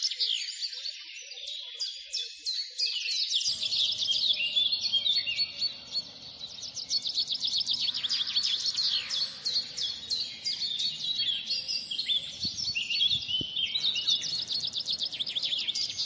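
A busy chorus of small birds chirping and trilling, rapid high notes overlapping without a break. A faint outdoor background hiss and rumble comes in a few seconds in.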